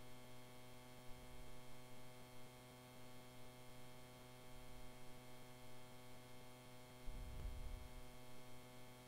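Steady, faint electrical hum, a mains hum in the recording, with a faint low rumble about seven seconds in.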